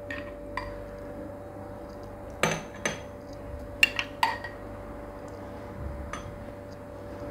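Metal spoon clinking against glass goblets and ice cubes as basil seeds are spooned in. There are a handful of sharp clinks, bunched between about two and a half and four and a half seconds in, with one more near the end.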